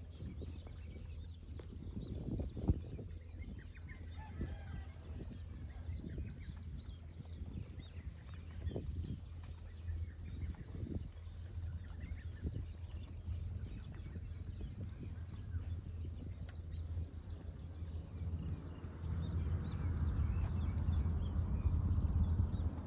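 Seaside outdoor ambience: a steady low rumble with faint, scattered bird calls and small ticks. There is one sharp click about three seconds in, and the background grows a little louder near the end.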